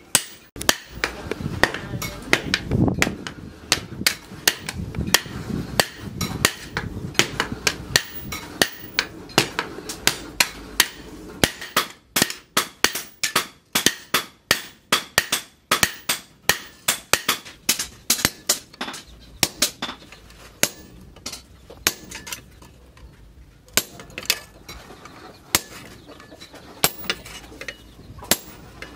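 Hand hammer striking a red-hot cleaver blank of disc-plough steel on a steel post anvil: a run of sharp, ringing blows, about two a second, with short pauses. Near the end, blows fall on a hot-cut chisel held in tongs, cutting the blade's outline.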